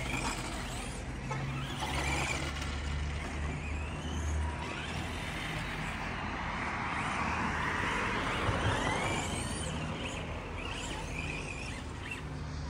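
Electric motors of Arrma Senton 4x4 RC trucks whining as they rev up and down while driving on grass, with rising and falling glides in pitch that grow busier and louder in the middle.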